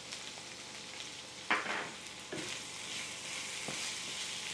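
Boiled potato pieces sizzling steadily in a hot oil tempering as a wooden spatula stirs and scrapes through them in the pan, with one louder stroke of the spatula about a second and a half in.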